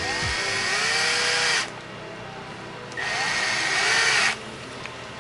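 Cordless drill on its lowest setting driving screws into an RC truck's chassis to fix a battery tray. It makes two runs of about a second and a half each, with a whine that rises as it spins up.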